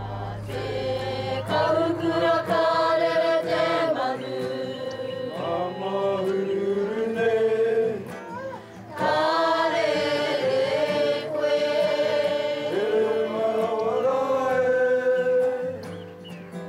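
A choir of voices singing a slow song in harmony, with a short pause between phrases about eight seconds in.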